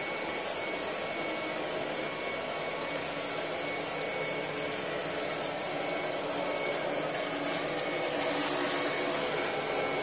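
ILIFE robot vacuum running over a tile floor, picking up sand and dirt: a steady whir with a faint high whine, growing slightly louder over the last few seconds.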